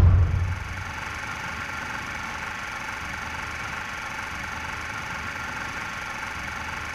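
Logo sting sound effect: a deep boom dying away in the first half-second, then a steady, even hissing drone.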